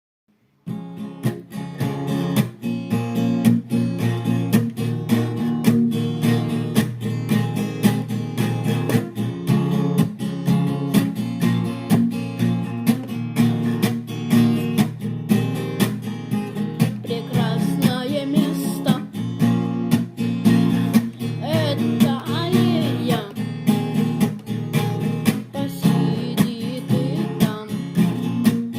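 Acoustic guitar strumming chords in a steady rhythm, starting after a brief moment of silence as a song opens. A melody line that wavers in pitch joins over the strumming from about seventeen seconds in.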